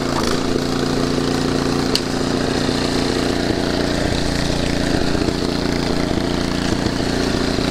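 Craftsman snowblower's 8.5-horsepower single-cylinder engine running steadily and loud, freshly rebuilt with new head, valve and exhaust gaskets and left running to burn off oil.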